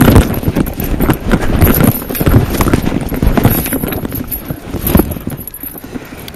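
Rustling and irregular knocking from a handheld camera jostled close against pine straw and brush, loudest at first and fading near the end.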